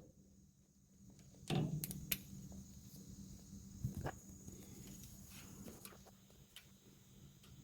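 A few faint clicks and knocks of a socket and hand tools on the exhaust manifold bolts, over a faint steady high tone.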